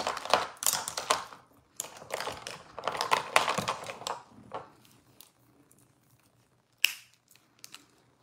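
A rapid clatter of small clicks and taps as makeup pencils and brushes are picked through and handled close to the microphone, easing off after about four seconds, then a single sharp click near seven seconds.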